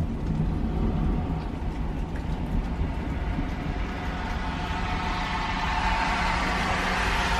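Outdoor warning siren sounding faintly through a steady low rumble. Its tone grows louder over the second half.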